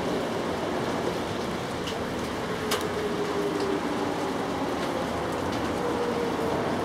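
Steady hiss of outdoor background noise, with a faint wavering hum and a couple of sharp ticks about two and three seconds in.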